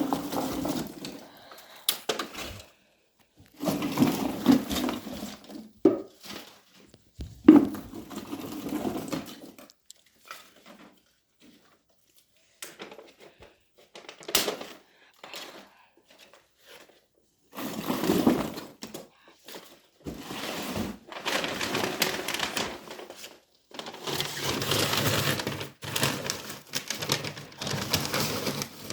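Firewood being handled and laid in a fireplace: irregular bursts of knocking, thunks and clattering, with a few sharp knocks and short pauses between handlings.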